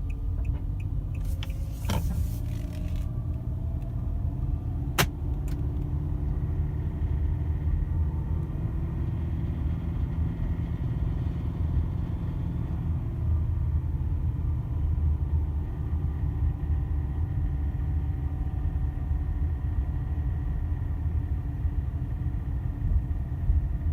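Kia Sorento XM facelift running with a steady low rumble, with a burst of noise between about one and three seconds in and one sharp click about five seconds in. The owner hears an unexplained knock somewhere in the car.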